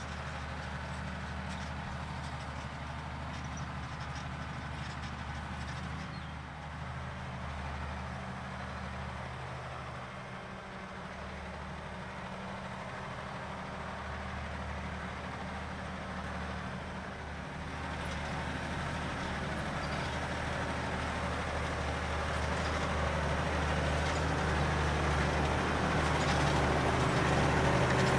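Valtra T214 tractor's diesel engine running steadily under load while pulling a four-furrow plough, growing louder through the second half.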